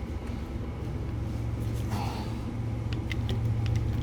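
A steady low engine hum, like an idling motor, with a few faint clicks in the second half.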